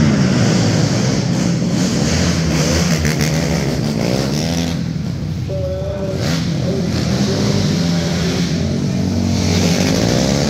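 Two 450-class single-cylinder four-stroke race quads lapping an indoor dirt oval, their engines revving up and down repeatedly through the turns, heard inside an enclosed arena hall. The engine sound fades somewhat around the middle and builds again near the end.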